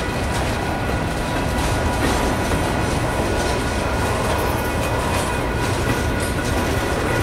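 Freight cars (covered hoppers and tank cars) rolling past. Their wheels make a steady rumble on the rails, with clicking over the rail joints.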